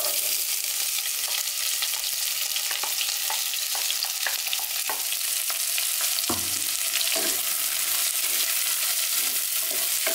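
Freshly added sliced onions sizzling steadily in hot oil, with short crackles throughout. From about halfway in, a wooden spatula stirs and scrapes them around the pot.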